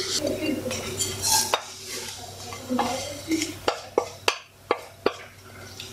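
Coarse-ground besan (gram flour) being poured from a glass bowl into a nonstick kadai of warm ghee. Several sharp clicks and knocks of kitchenware against the pan come mostly in the second half.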